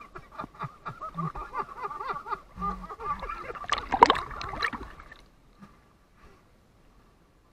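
Water sloshing, gurgling and splashing against an action camera held at the water surface as it dips in and out, with the loudest splashing about four seconds in; it falls much quieter after about five seconds.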